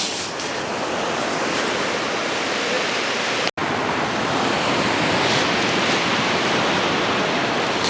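Steady wash of surf on a beach, a constant noise with no distinct events. It drops out completely for a split second about three and a half seconds in, then carries on as before.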